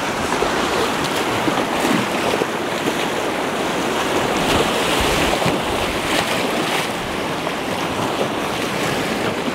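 Whitewater rushing through a shallow, rocky river rapid: a steady, unbroken rush of water.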